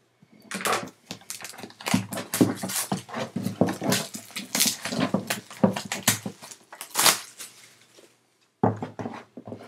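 Packaging on a sealed trading-card box being torn and handled: a dense, irregular rustling and crackling, broken by a brief pause near the end.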